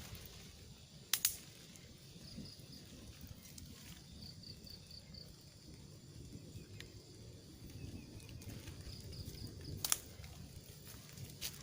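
Faint outdoor ambience with a few short runs of quick, high chirping notes, about four or five to a run, and two sharp clicks, one about a second in and one near the end.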